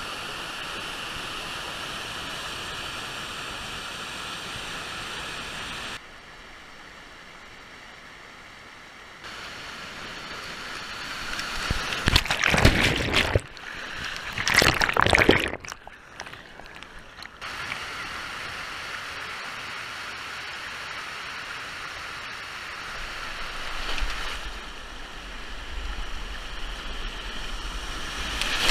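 Rushing whitewater pouring over smooth rock slides, heard from a camera at water level. Loud surges of splashing come about twelve and fifteen seconds in, as water washes over the microphone.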